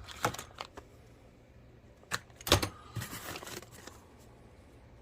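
Small parts and their packaging being handled: scattered sharp clicks and knocks, a louder cluster of clicks about two and a half seconds in, and a brief rustle just after.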